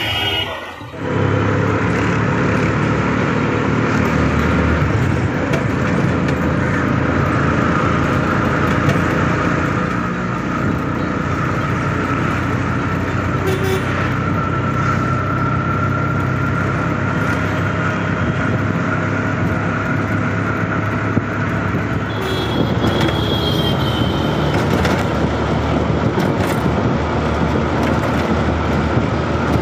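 Auto-rickshaw engine running steadily while driving, with road and traffic noise, heard from inside the open cabin.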